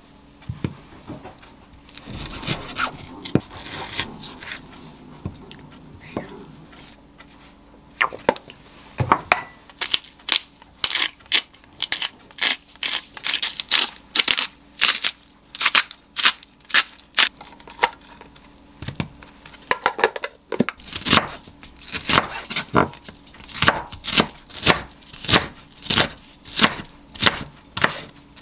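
Kitchen prep sounds. A chef's knife cuts beef on a wooden cutting board, then a hand salt grinder is cranked in quick rasping clicks. Near the end the knife chops onion against the board in a steady run of knocks, about two a second.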